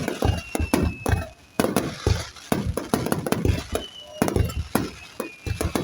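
Aerial fireworks bursting in quick succession: many sharp bangs with deep booms and crackling. A whistling tone slides slowly downward twice.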